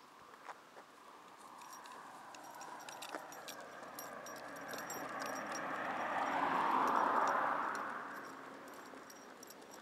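A vehicle passing: its tyre and engine noise swells over several seconds, peaks about two-thirds of the way through, then fades. Light clinking from the dog's harness and lead clip sounds throughout.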